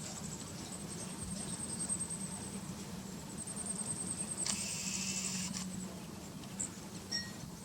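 Wild turkey scratching and rustling through snow and leaf litter as it forages, loudest about four and a half seconds in. A short high chirp comes near the end.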